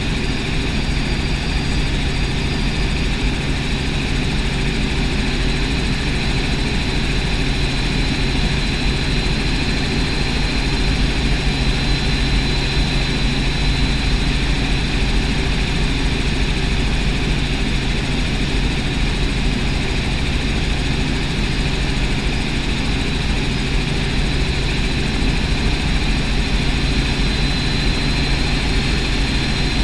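Helicopter in cruise heard from inside the cabin: the engine and rotors make a steady drone with a thin high whine held above it.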